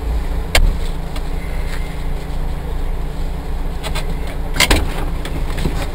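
Off-road vehicle's engine running steadily while the vehicle stands still, with a few sharp knocks over it, one about half a second in and a couple near the end.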